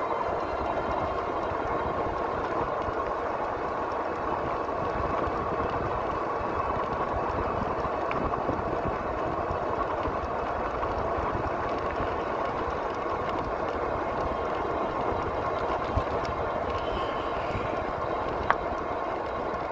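Steady riding noise from an e-bike rolling along an asphalt road: wind rushing over the microphone and tyre noise, with two short clicks near the end.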